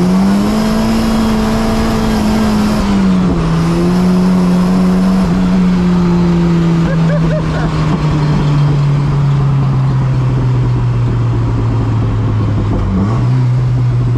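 Turbocharged Volvo wagon's engine heard from inside the cabin in fourth gear: the revs finish climbing right at the start, hold briefly, then the engine note sinks slowly and steadily over the following seconds as the car eases off.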